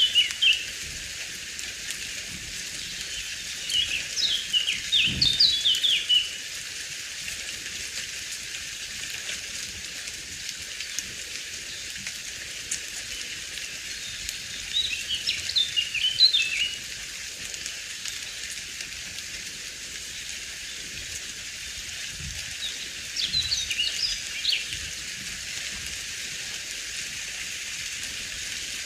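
A songbird singing short, quick twittering phrases three times, about ten seconds apart, over a steady high hiss.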